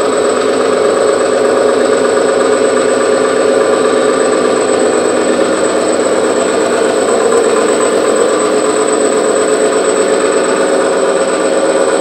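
ST05G-CNC Stirling engine test stand running steadily, the engine coupled to its 2 kW induction-motor dynamometer: a continuous mechanical hum with a thin high whine over it.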